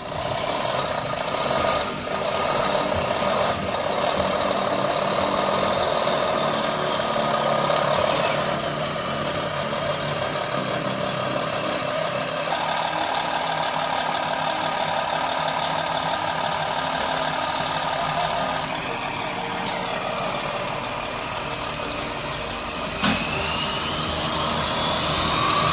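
Heavy log truck's engine running steadily under load, with steady high-pitched whining tones over it. A short sharp knock comes near the end, followed by a rising whine.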